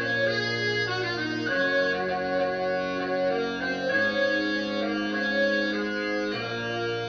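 Concert band playing slow, sustained chords over a strong bass line, the harmony changing every two to three seconds, in a concerto for baritone saxophone and band.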